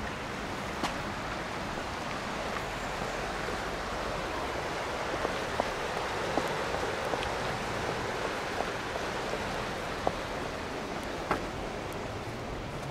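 Steady rush of a river in flood, high water running fast. A few light clicks stand out over it here and there.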